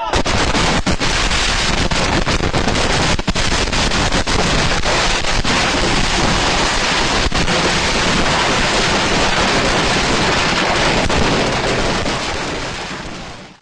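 Fireworks going off at close range: a dense, continuous barrage of bangs and crackles that starts suddenly and dies away near the end.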